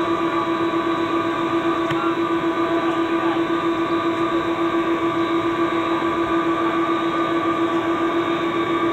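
Steady engine and airframe drone inside a KC-135 tanker's fuselage: a loud, unbroken hum with a slight regular throb and a few higher steady tones over it.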